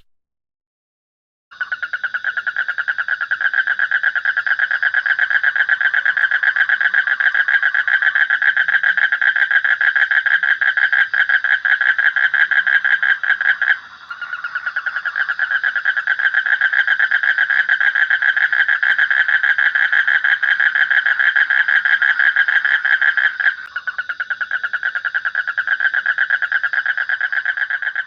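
An animal's continuous rapid pulsing trill, steady in pitch, in three long stretches with short breaks about 12 and 22 seconds in.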